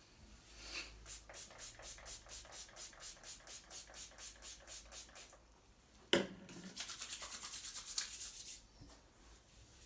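Hands rubbing rhythmically during a massage, about four to five strokes a second, then a single sharp smack about six seconds in, followed by a short burst of faster rubbing at about eight strokes a second.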